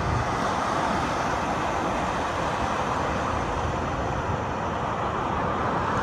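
Ocean surf breaking and washing in, a steady unbroken rush of noise.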